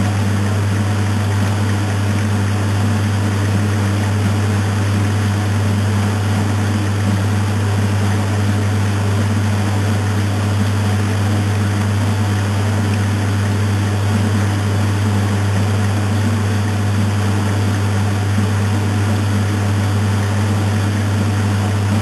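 Maytag Atlantis top-load washing machine agitating a wet load, with a steady low motor hum and the swish of water and clothes in the tub.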